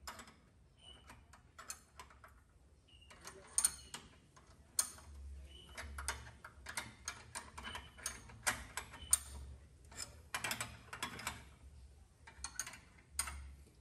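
Irregular metallic clicks and clinks of two 19 mm combination spanners on the fittings of an in-line fuel filter as they are tightened.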